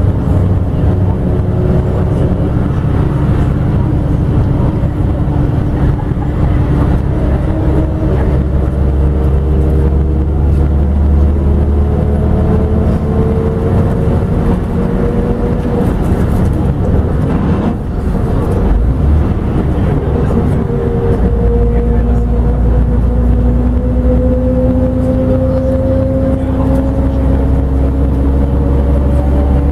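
Ikarus 250.59 coach's diesel engine pulling under way, heard from inside the passenger cabin over road rumble. Its note climbs slowly, drops briefly about eighteen seconds in, then climbs again.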